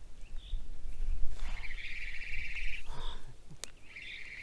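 Insects chirring in long steady buzzes, with wind rumbling on the microphone and a single sharp click about three and a half seconds in.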